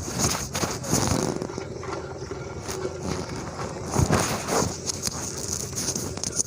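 Milk squirting into a pail as a cow is milked by hand: a run of short, uneven zipping strokes.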